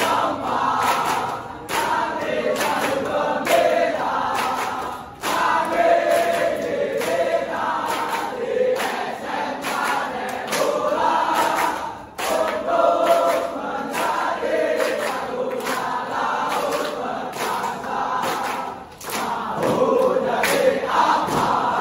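A large group of students chanting and singing a yel-yel cheer in unison, with regular hand claps keeping the beat.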